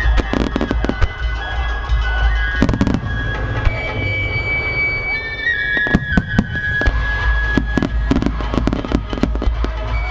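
Aerial firework shells bursting in quick succession: many sharp bangs and crackles over a continuous low rumble. Music with long held notes plays alongside.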